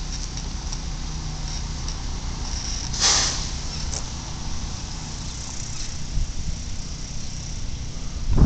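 Steady low outdoor rumble, with one brief rushing noise about three seconds in.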